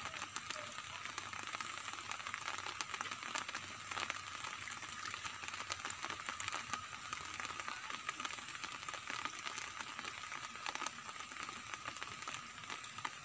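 Light rain pattering on a river's surface: a steady fine hiss made of many small drop ticks.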